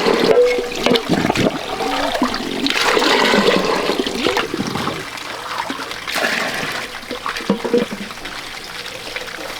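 Rushing, gurgling water, louder for the first five seconds or so and then easing.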